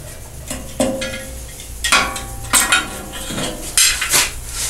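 Metal parts of a band saw being handled and taken off to get at the blade, likely the blade guard: a series of sharp clinks and knocks, several with a brief metallic ring.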